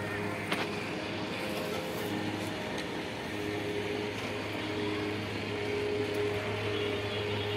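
Steady city traffic noise rising from the streets below, with a brief click about half a second in.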